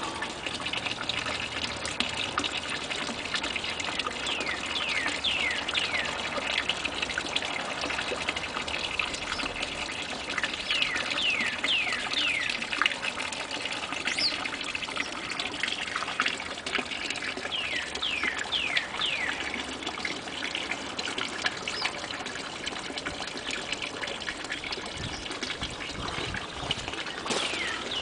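Small garden-pond waterfall trickling and splashing steadily over rocks. A bird calls over it every few seconds in quick runs of three or four short falling chirps.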